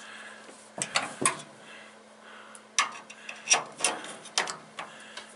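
Sharp metal clicks and knocks of a screwdriver prying at the release catch of a tool box drawer's slider, about eight irregular strikes with a cluster around the second second and a run between three and five seconds in, over a faint steady hum.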